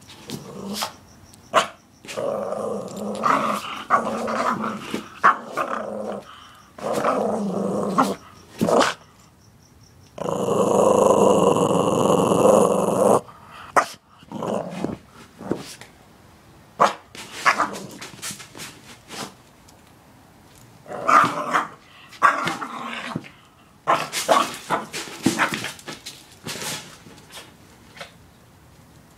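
Small dog growling and snarling in repeated bouts while it plays with a ball during fetch, with knocks and scrapes as it mouths the ball. Near the middle, one louder, unbroken snarl lasts about three seconds.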